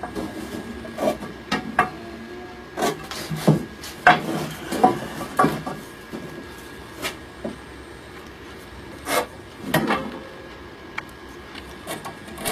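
Wooden frame stock and marking tools handled on a workbench while lines are carried across the pieces: scattered sharp knocks and clicks of wood, with light rubbing and scraping between them.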